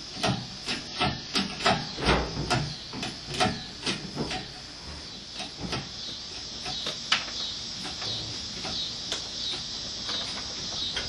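Shop crane's chain and hook clinking and clanking as a Volkswagen air-cooled engine is hoisted out on it. The clicks are irregular, two or three a second for the first half, then only an occasional click, over a steady high hiss.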